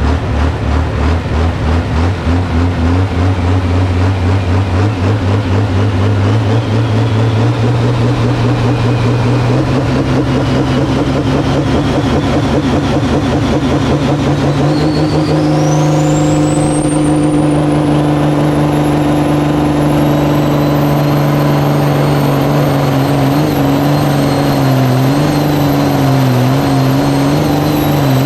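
Pulling tractor's engine running hard under load. Its note pulses at first and then climbs in steps, while a high whine rises steadily for about fifteen seconds and then holds steady, with the engine note wavering slightly near the end.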